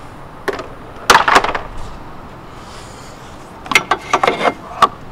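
Hard plastic knocks and rubbing from a car's engine cover and engine-bay trim being handled: a single knock about half a second in, a quick cluster around one to one and a half seconds, and another cluster around four seconds.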